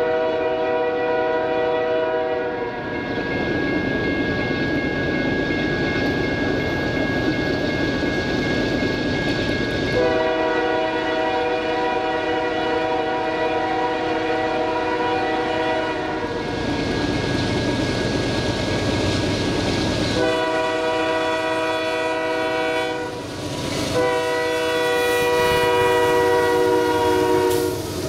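Union Pacific freight locomotive's air horn sounding a chord in long blasts as the train approaches and passes, with short breaks about halfway through and again near the end. Between blasts the train's rumble and steel wheels clacking over the rail joints are heard.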